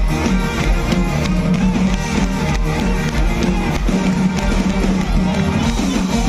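Live folk-rock band playing loudly through a PA: electric guitars, accordion, brass and drum kit over a steady drum beat.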